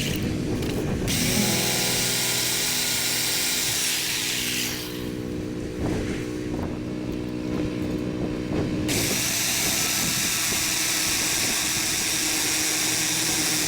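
Power tool running on timber. Its high hiss drops out for about four seconds mid-way, with a run of short knocks, then comes back.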